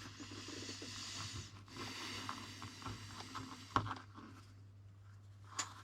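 Knife cutting through fire cord with two long scraping strokes, then a sharp click about four seconds in and another near the end.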